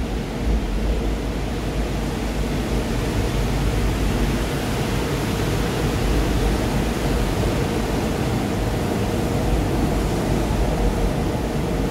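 Seoul Metro Line 4 4000-series subway train running through the station at speed without stopping, heard behind platform screen doors. Its steady rumble of wheels on rail builds over the first couple of seconds, then holds.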